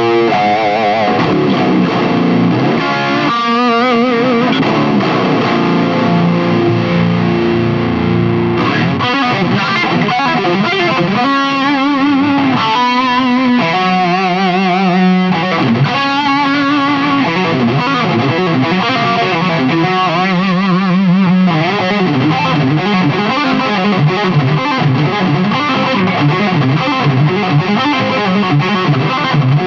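Fernandes Revolver electric guitar played solo through distortion: held notes and chords, some shaken with a wide wavering vibrato about halfway through, then fast, dense runs of notes toward the end.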